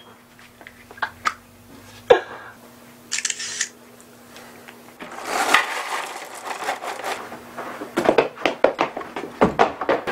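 A short spray from an aerosol body-spray can about three seconds in, then dry cereal pouring from the box into a bowl for a couple of seconds, followed by clattering footsteps near the end.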